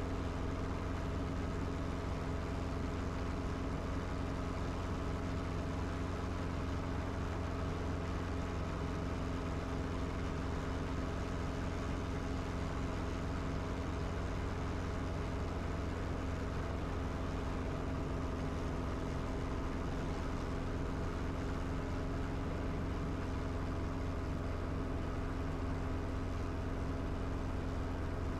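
Training helicopter's engine and rotor running steadily, heard from inside the cockpit, as it hover-taxis low over the field toward a landing pad.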